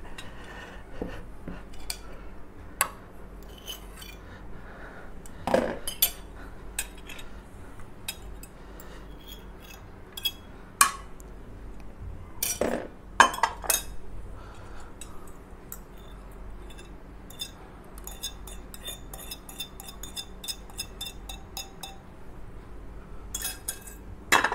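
Ceramic bowls and a plate knocking and clinking on a table, with metal spoons clinking and scraping against the ceramic as instant fried noodles are tipped out of bowls onto one plate. The knocks are scattered, a few louder ones in the middle, then a quick run of small repeated clicks.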